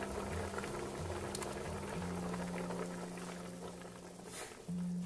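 Chicken corn soup boiling in a pot, a steady bubbling.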